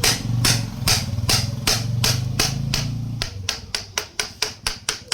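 Metal hammer blows on a bicycle freewheel's top cover, knocking it round to unscrew it. The blows come about two a second for the first three seconds, then turn into quicker, lighter taps about four a second.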